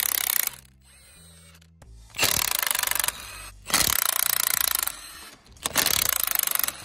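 Impact wrench running in four bursts of about a second each, a rapid hammering rattle with short pauses between.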